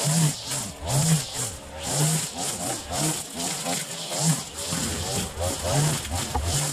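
Gas string trimmer running, its engine revving up and easing back about once a second as it cuts grass.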